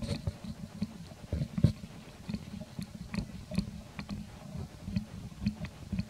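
Baby macaque suckling at its mother's nipple: irregular soft mouth clicks and smacks, several a second, over low dull thumps.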